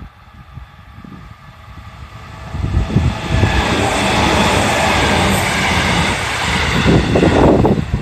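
JR Central electric commuter train passing close by, its wheels running on the rails. The sound builds about two and a half seconds in, stays loud, and drops away near the end as the train goes by.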